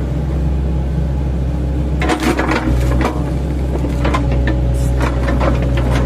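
An 8-ton class excavator's diesel engine running steadily, with a run of sharp knocks and cracks starting about two seconds in as the machine works.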